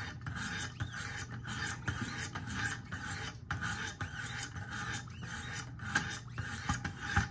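Wicked Edge guided sharpener: hand-held stone paddles stroked against the steel edge of a clamped recurve pocket knife, a rasping scrape repeated stroke after stroke with brief breaks between strokes.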